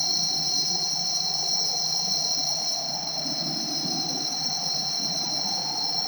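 Insects droning in a steady, unbroken high buzz over the low, even rush of a waterfall and rapids.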